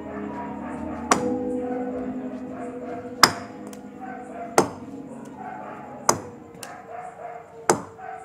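Soft music with held, fading notes, cut through by five sharp, ringing knocks spaced about a second and a half apart.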